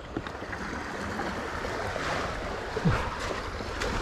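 Sea water lapping and splashing against a fishing kayak, with a dull knock about three seconds in.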